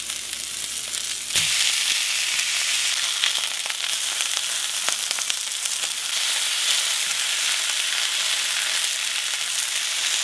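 Steaks sizzling as they sear in a hot cast iron skillet while being turned with tongs. A steady, hissing sizzle that gets louder about a second and a half in.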